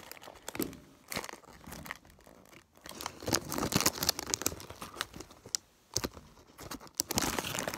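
Thin clear plastic packaging bag crinkling and rustling in the hands in irregular crackles as a foam squishy toy is handled with it.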